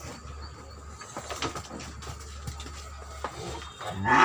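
Scattered soft knocks and shuffling over a steady low hum in a cattle pen; near the end a cow starts to moo loudly, its pitch rising as the call begins.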